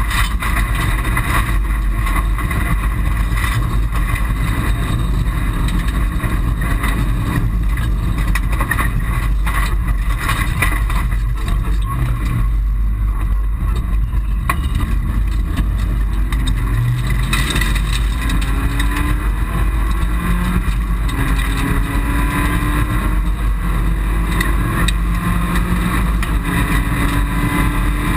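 Mitsubishi Colt rally car's engine heard from inside the cabin, driven hard with gravel and stones rattling under the car. Around the middle it eases off for a junction, then climbs in pitch again and again as it runs up through the gears.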